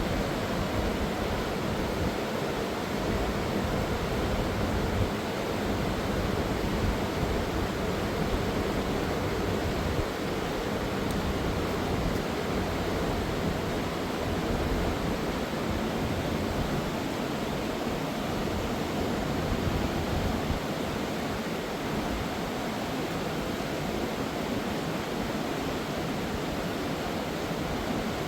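Fast mountain river rushing over rocks: a steady, unbroken roar of water.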